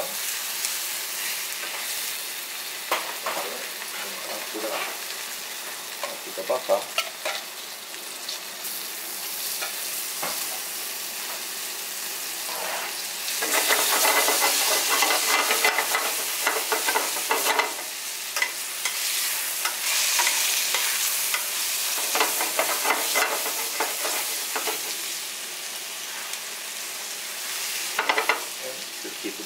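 Cornstarch-dusted chicken pieces sizzling in oil in a skillet over low heat, with a few sharp clicks of metal tongs against the pan as the pieces are turned. The sizzle grows louder for a stretch from about halfway in.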